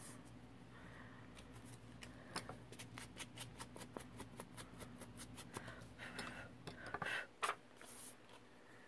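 Faint, rapid small clicks, about four or five a second, from paper-crafting handling at the table, with a few louder paper rustles near the end.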